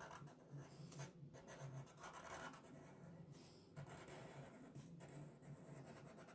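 Faint scratching of a Sharpie marker's felt tip on paper, in a series of short strokes as wavy lines are drawn.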